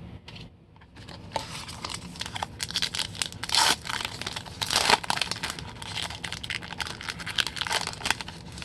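Plastic baseball-card pack wrapper crinkling and being torn open by hand, with two louder rips about three and a half and five seconds in.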